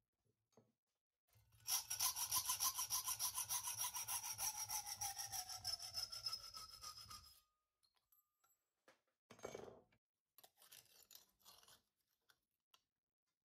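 Hacksaw cutting 1.5 mm stainless steel sheet clamped in a vise, cut close to the jaw to keep the noise down: quick, even strokes for about five and a half seconds, with a ringing note in the metal that slowly falls in pitch as the cut goes on. A few faint knocks follow.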